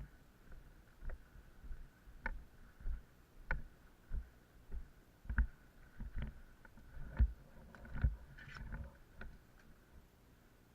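Footsteps in snow, a steady walking rhythm of about one and a half steps a second with light crunches, stopping near the end.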